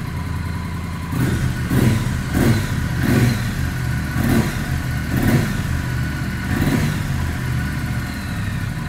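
Triumph 900 cc parallel-twin motorcycle engine on its stock exhaust, idling with a heavy sound. From about a second in, the throttle is blipped about seven times in quick succession, each rev rising and falling back to idle.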